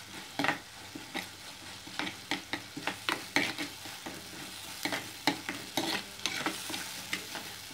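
A steel spoon scraping and knocking irregularly against an earthenware pot as a frying tomato and spice mixture with curry leaves is stirred, over a steady sizzle.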